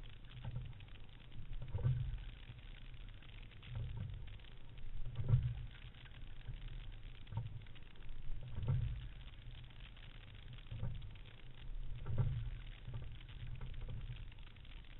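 Muffled rush of water and wind around a racing single scull, swelling in a low surge about every one and a half to two seconds as the sculler takes each stroke.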